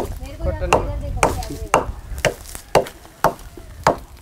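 Regular sharp knocks on a wooden plank, about two a second, as Manila tamarind pods are struck and split open on it.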